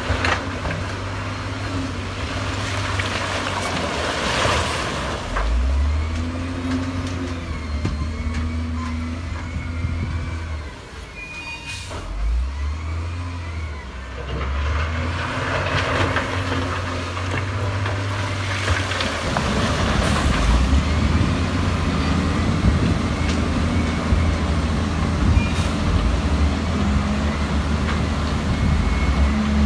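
Heavy diesel earthmoving machinery at work, its engines rising and falling in pitch as they rev under load, with faint high squeals over the top. The running gets louder and steadier over the last ten seconds.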